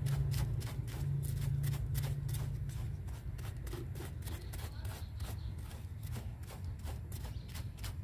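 Hand brush scrubbing the exposed surface roots and mossy soil at the base of a bonsai tree in quick scratchy strokes, about four a second, to clean the root base. A low hum fades out about three seconds in.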